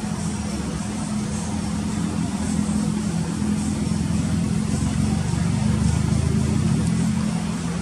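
Diesel engine of a Scania tri-axle coach pulling along slowly at low revs, a steady low hum that grows louder as the coach comes closer.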